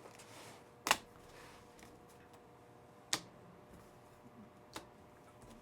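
Trading cards being handled on a table during a pack opening: three sharp clicks or taps, the first the loudest, over a faint steady hum.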